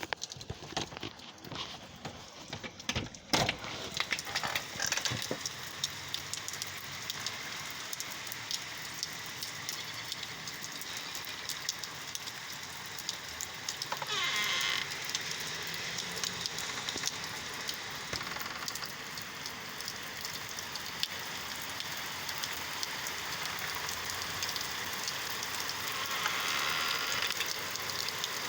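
Rainstorm: rain falling steadily with a dense patter of drops, wind blowing through it. A sharp knock about three seconds in, and a brief louder rush about halfway through.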